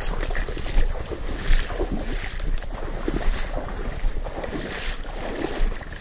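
Wind rumbling on the microphone, with irregular sloshing of water as someone wades through a shallow flooded field.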